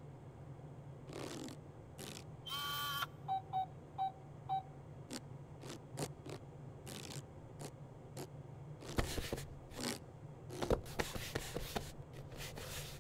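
Added sound effects: scattered mechanical clicks and short rustles over a steady low hum. An electronic tone sounds about two and a half seconds in, followed by four short beeps, and louder rustling and thumps come near the end.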